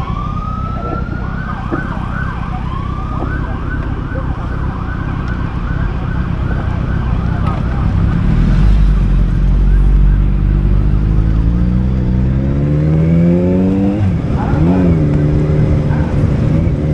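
Escort motorcycle's siren sweeping up into a rapid yelp for several seconds over a steady low rumble of engine and wind. Later the motorcycle engine's note rises, dips briefly, then holds steady.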